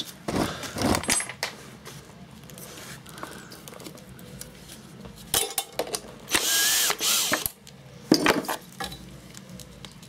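A socket tool unscrewing the contact-breaker points bolt on a 2 hp Briggs & Stratton engine: ratcheting clicks and metal-on-metal clatter. There are short bursts of tool noise, the longest about six and a half to seven and a half seconds in.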